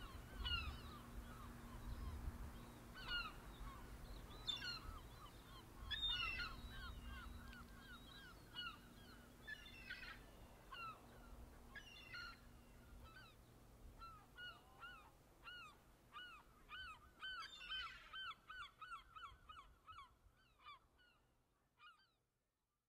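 A flock of birds calling: many short, repeated calls overlapping one another, with a low rumble beneath them for the first several seconds. It all fades out shortly before the end.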